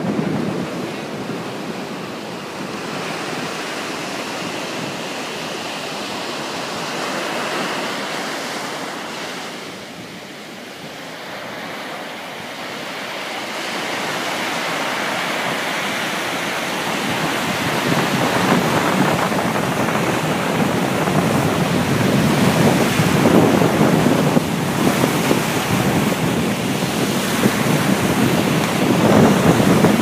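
Sea surf breaking and washing up a sandy beach, mixed with wind buffeting the microphone; the wash dips briefly partway through, then grows louder through the second half.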